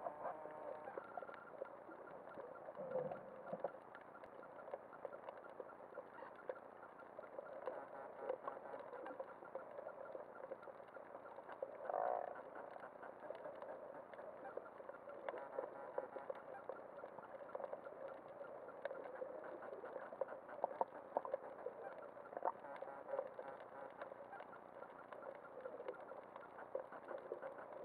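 Muffled underwater ambience heard through a camera's waterproof housing, with many scattered clicks and crackles and a couple of louder swells.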